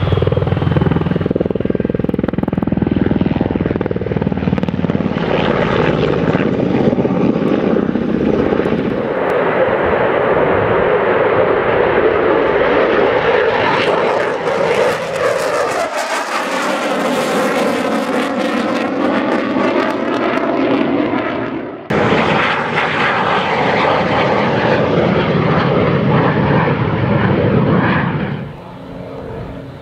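Military aircraft flying past one after another, with abrupt changes between them: a Black Hawk helicopter at first, then the loud jet roar of an F/A-18F Super Hornet, which climbs to a hissing high-pitched peak in the middle. The sound cuts suddenly to another jet's flypast near the end.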